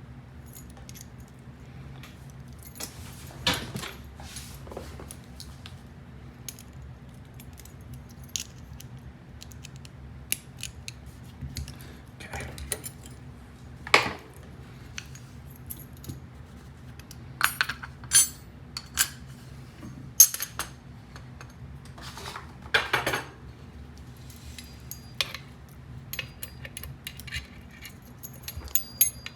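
Scattered small metallic clicks and clinks of a lock cylinder and lock-picking tools being handled, loudest in a few sharp knocks near the middle and later on, over a steady low hum.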